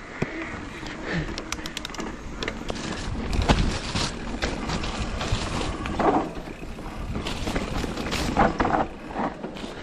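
Mountain bike riding over dirt singletrack: tyres rolling over dirt and roots, with the bike rattling and clicking over the bumps and a heavy jolt about a third of the way in.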